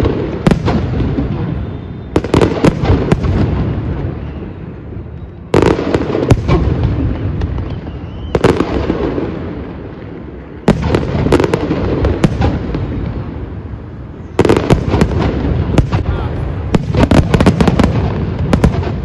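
Fireworks display: aerial shells burst with sudden loud bangs. A fresh volley comes every few seconds, each followed by a rapid crackle of small reports and a low rumble that fades away.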